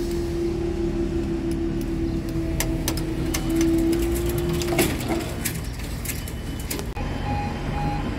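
A train's steady drone, with scattered clicks, stops about five seconds in. About seven seconds in, a level crossing warning alarm starts, a pitched tone pulsing about twice a second, signalling another train on its way.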